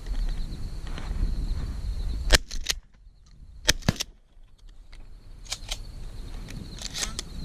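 Shotguns firing in a string of shots. The loudest blast comes about two seconds in, two more follow close together a second and a half later, and fainter shots come near five and a half and seven seconds.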